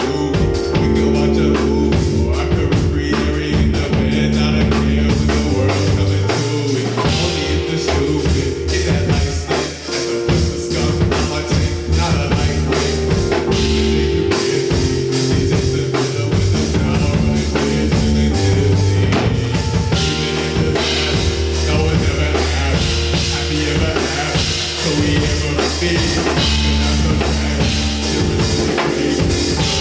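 Live rock band playing a song: drum kit with steady cymbals and kick drum, bass notes and electric guitar.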